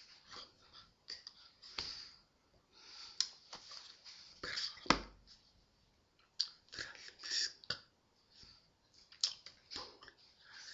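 Scattered soft taps, clicks and rustles from a person signing: hands meeting, brushing and striking each other, with mouth clicks and breath. One sharper click comes about five seconds in.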